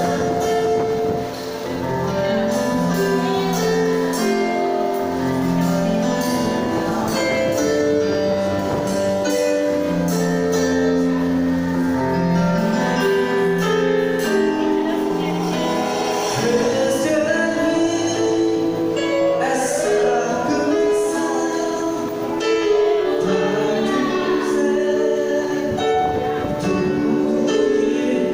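A live gospel band playing: held keyboard and synth chords over drums, bass and guitars, with cymbal hits throughout.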